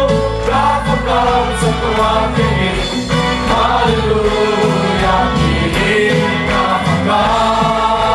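A group of voices singing a gospel hymn together over instrumental accompaniment with a steady rhythmic beat.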